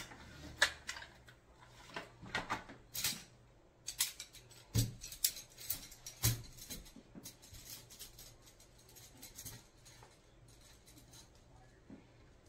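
Aluminum poles and folding leg frame of an ultralight camp table clicking and rattling as it is handled and unfolded, with two dull knocks about five and six seconds in.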